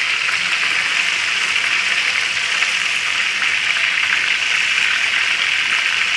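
Beef seekh kebabs on wooden skewers frying in hot oil in a pan, with a steady sizzle.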